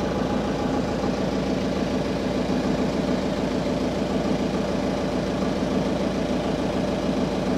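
A fishing boat's onboard diesel generator engine running steadily at constant speed, in the engine room.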